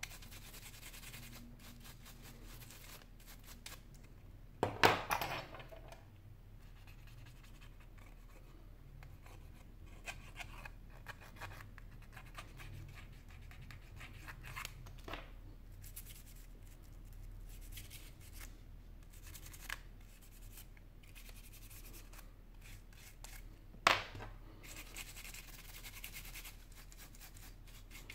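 Small repair tools scratching and clicking against the opened metal frame and battery of a Sony Xperia Z3 Compact, with many light ticks and two much sharper clicks, one about five seconds in and one about four seconds before the end.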